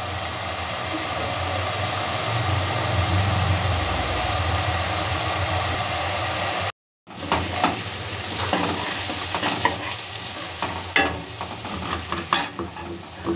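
Chopped onions and green chillies sizzling in oil in a kadhai, a steady frying hiss. After a brief gap about halfway through, the hiss goes on with the scrape and click of a utensil against the pan as the onions are stirred.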